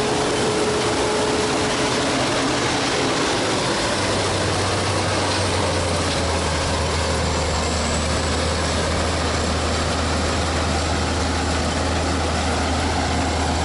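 Case IH 2166 combine harvester running under load while harvesting corn: a steady engine and threshing-machinery noise. A low, even hum settles in about four seconds in.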